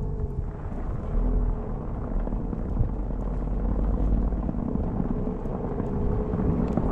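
Jeep Wrangler running and moving slowly, a steady low rumble of engine and tyres.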